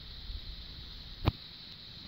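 One short thump about a second and a quarter in, with a couple of faint ticks before it, over a steady hiss with a thin high whine.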